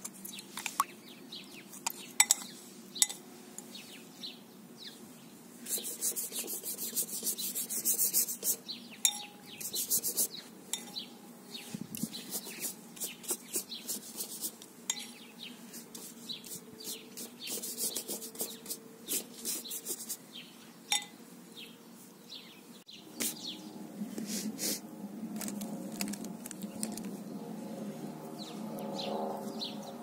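Wide flat brush stroking back and forth across watercolour paper in quick, scratchy spells, with a few sharp taps of the brush against a cup early on.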